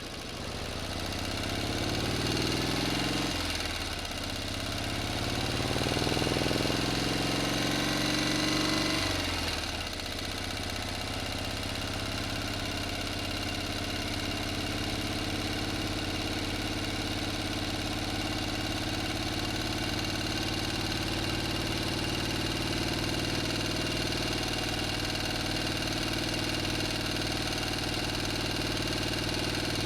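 An engine revved up twice, the second rev held for a few seconds before dropping back sharply about ten seconds in. It then settles into a steady, even idle.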